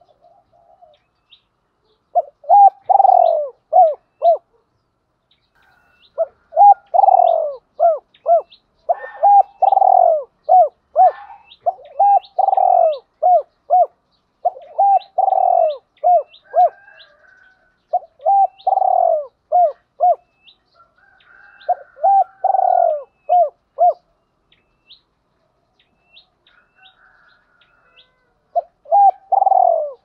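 Spotted dove cooing in repeated phrases, each a quick run of short coos around one longer, louder coo. It stops for about four seconds near the end, then starts again.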